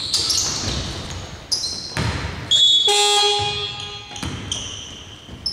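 Basketball play on a hardwood court in a large, near-empty arena: sneakers squeaking and a ball bouncing, with several sharp knocks. About two and a half seconds in, an electronic buzzer-type horn sounds for under a second.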